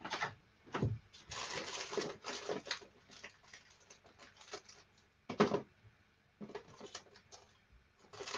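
Irregular knocks, clicks and rustling, like things being handled and moved about. There are a few sharper thuds, and a longer stretch of rustling about a second in.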